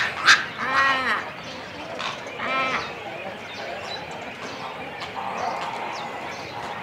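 Cormorant colony calls at the nest: two short, sharp calls at the start, then two wavering, bleat-like calls about a second and a half apart, over continuous background chatter from the colony's birds.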